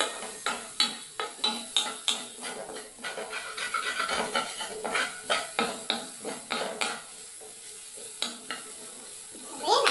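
Wooden spatula scraping and knocking against an aluminium pot in irregular strokes, stirring garlic, onion and ginger sautéing in beef fat, with a light sizzle underneath. The strokes thin out and grow quieter after about seven seconds.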